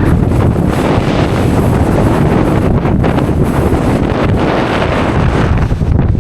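Wind buffeting the camera microphone, a loud, steady rumble.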